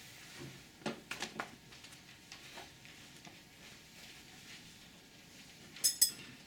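A treatment belt being handled and buckled around a patient's chest: a few soft clicks about a second in, then two sharp metallic clicks near the end from its metal buckle.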